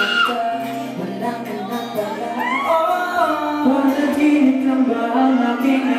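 Male pop vocal group singing live into microphones, accompanied by a single acoustic guitar.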